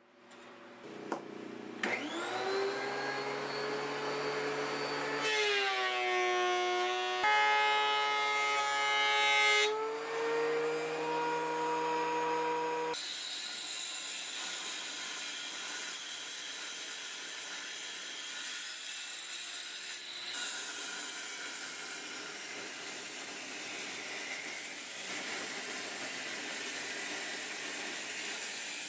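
Table saw motor spinning up with a rising pitch about two seconds in, then running steadily. From about halfway the blade is cutting through a walnut board, a dense steady sawing noise with a short break a little past two-thirds of the way.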